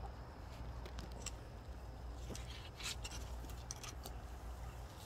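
Faint rustling and scraping of a long-handled garden fork digging into dry, dusty compost, with a few light ticks scattered through.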